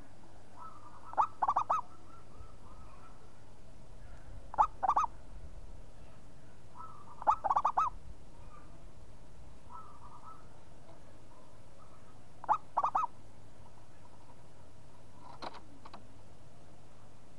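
Zebra dove (perkutut) cooing: four loud bursts of quick staccato coo notes a few seconds apart, with softer coos between them and a faint last burst near the end.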